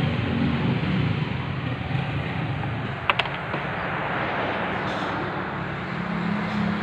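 Steady low hum of running machinery, with a single sharp click about three seconds in.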